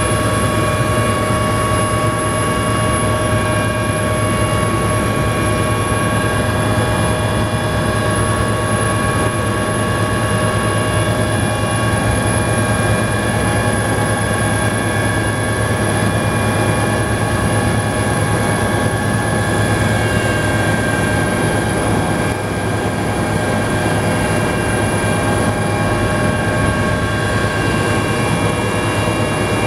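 Helicopter turbine engine and rotor heard from inside the cabin in flight: a steady, loud drone with several constant high-pitched whining tones over it.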